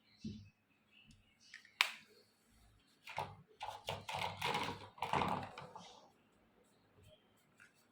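Small plastic toy kitchen pieces being handled. A soft knock comes first, then one sharp click, then a quick run of clicks and rattles like typing that dies away about six seconds in.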